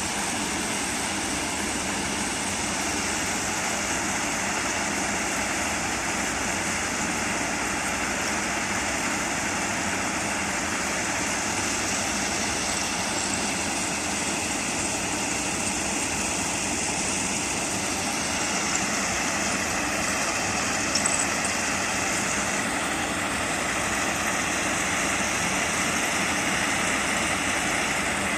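Railway machine's engine running steadily, a dense unbroken mechanical noise, with one short click about three quarters of the way through.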